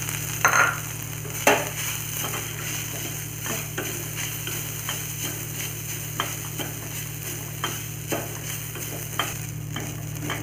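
Grated fresh coconut sizzling in ghee in a steel pan, stirred with a wooden spatula that scrapes and taps against the pan about once a second, over a steady frying hiss.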